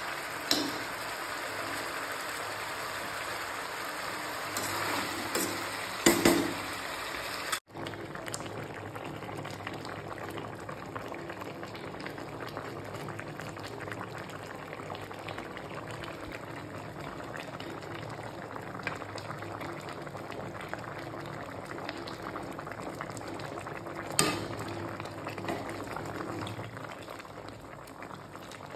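Fish curry cooking in a steel kadhai: masala-coated fish frying, then, after a brief dropout about eight seconds in, the curry bubbling at a steady boil. A few clinks of a metal spoon against the pan come through, the loudest about six seconds in.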